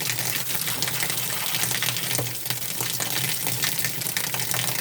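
Steady rush of running water, with light clicks and knocks over it.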